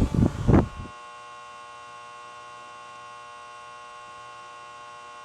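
A steady electrical hum with many evenly spaced overtones, holding an unchanging pitch after a second of louder, choppy sound.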